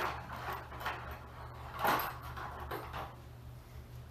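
A few soft scraping and rustling handling noises, the loudest about two seconds in, over a steady low electrical hum.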